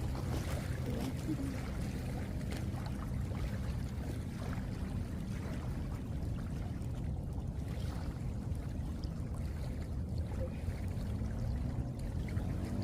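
Steady outdoor noise of wind and lapping lake water. A faint hum comes in near the end, rising in pitch.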